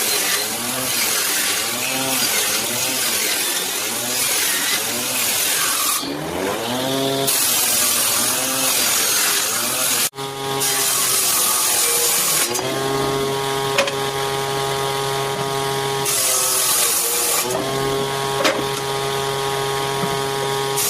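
Power woodworking machine running and working wood: its motor hum wavers up and down in pitch under load through the first half, breaks off suddenly about halfway, then runs at a steady pitch with a short change in between.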